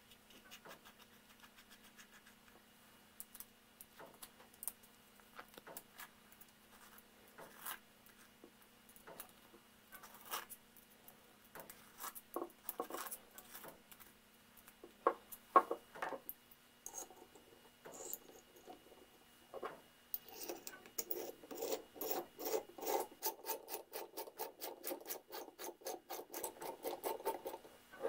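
Small steel parts of a vintage bit brace's chuck being handled and fitted together by hand, with scattered light clicks and scrapes. About two-thirds of the way in, a fast, even run of clicking starts as the assembled chuck is turned on the brace.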